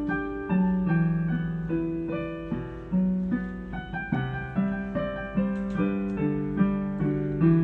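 Piano playing a slow melody over chords, each note struck and left to ring and fade.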